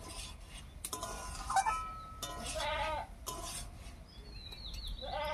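Goats bleating a few times in the background, short wavering calls, over a metal spatula stirring and knocking in an iron kadai.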